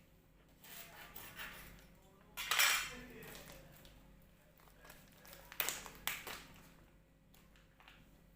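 Kitchen utensils and dishes clinking and knocking while fish cake is cut up for frying, with a louder clatter about two and a half seconds in and two sharp knocks around six seconds.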